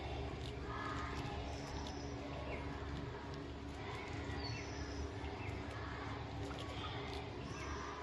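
A small flock of budgerigars chirping and chattering in short, scattered calls over a steady low background hum.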